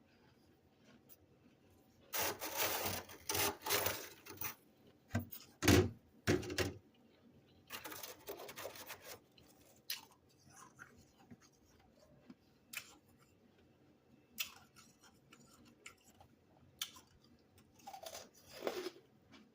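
Freezer frost being scraped, in a few rasping strokes with the last ending around 9 s, then scattered small clicks and a brief squeak falling in pitch near the end.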